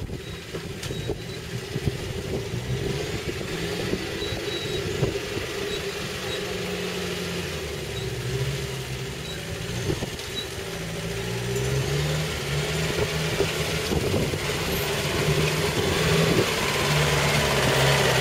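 Toyota Land Cruiser 70-series engine running at low revs as the 4x4 crawls along a side slope, its note rising and falling and growing louder as it comes closer.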